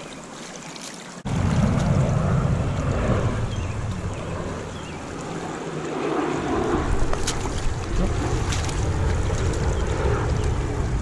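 Strong wind buffeting the microphone, a low rumbling noise that comes in suddenly about a second in and keeps on.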